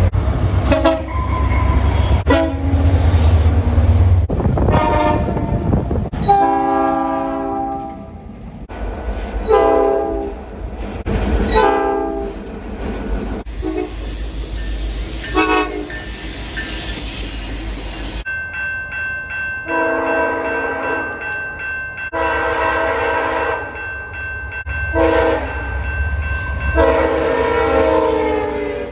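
Train horns sounding a string of blasts, some short and some held for a couple of seconds, over the low rumble and rush of passing trains. The sound changes abruptly several times between separate recordings.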